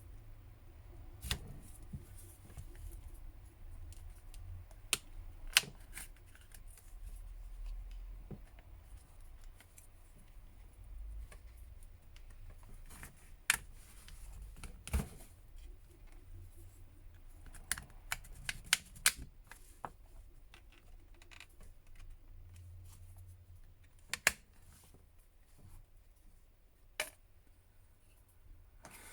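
Plastic back cover of a Huawei Y7 smartphone being pried off: scattered sharp clicks and snaps as the cover's clips come free, some in quick clusters.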